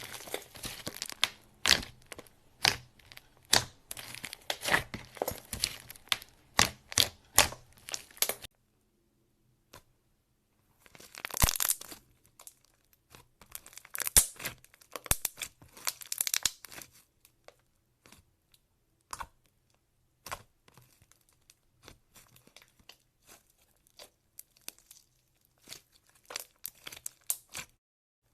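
Clay slime being worked by hand, with quick sticky crackles and pops. The crackles come thick and fast for about the first eight seconds, stop for a couple of seconds, then return sparser and in short clusters.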